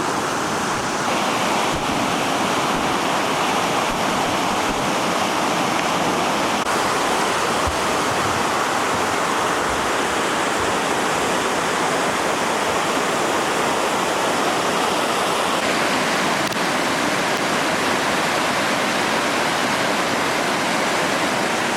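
A creek in flood, swollen by heavy rain, rushing fast in a steady, unbroken stream of water noise.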